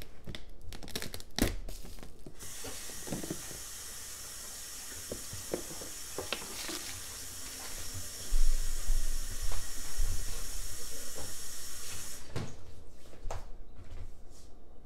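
Kitchen sink faucet running while hands are washed under it: a steady rush of water that starts about two seconds in, gets louder and uneven about eight seconds in, and shuts off about twelve seconds in. A few light clicks and knocks come before and after the water.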